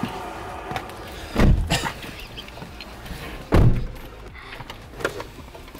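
Two car doors shut with heavy thuds about two seconds apart, heard from inside the car's cabin.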